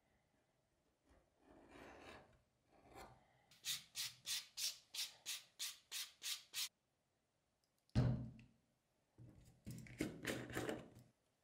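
Abrasive sanding of the edge of a stitched leather card wallet: about eleven quick back-and-forth rubbing strokes, then a thump and a shorter run of softer strokes near the end.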